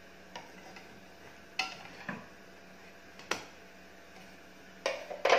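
A wooden spatula clicking and knocking against a nonstick frying pan as a bhakri is handled: about six separate sharp knocks, the loudest two close together near the end.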